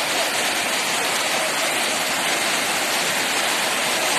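Steady rushing of water, an even wash of noise with no breaks or separate strokes.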